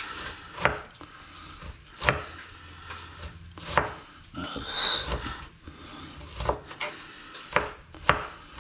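A kitchen knife chopping a red onion finely on a cutting board: single slow knocks a second or two apart, coming quicker near the end, with a short scrape about halfway through.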